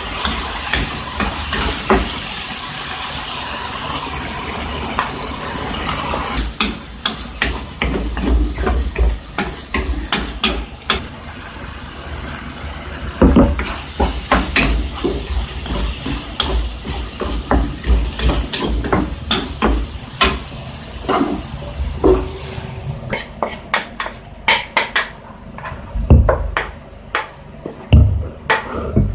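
A tofu, tuna and egg stir-fry sizzling in a non-stick frying pan while a wooden spatula stirs it, with many small clicks of the spatula on the pan. A few seconds before the end the sizzling stops and the spatula knocks against the pan a few times as the food is scraped out into a bowl.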